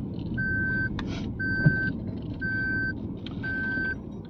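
Electronic warning beeps repeating evenly, each a single clear tone about half a second long, about once a second, over the low rumble of the car's engine in the cabin. A couple of short clicks come in between.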